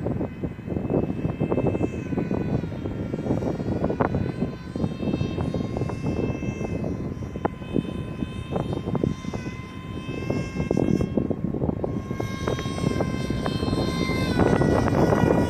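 Electric motor of an RC Su-47 model plane running with a steady high whine that steps in pitch a few times as the throttle changes, over a heavy low rumble of wind buffeting the microphone.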